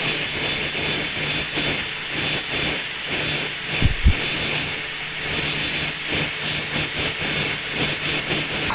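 Heat gun blowing steadily with a constant hum, heating a smartphone's screen edge to soften the adhesive before prying. Two low thumps about four seconds in.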